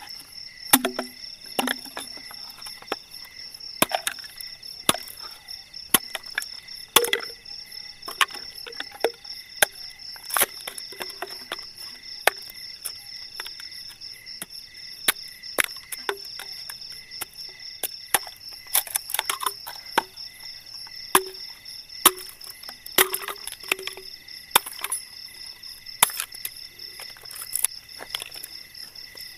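Irregular sharp knocks and cracks of sticks being chopped and broken for a campfire, over a steady high chirring chorus of night insects.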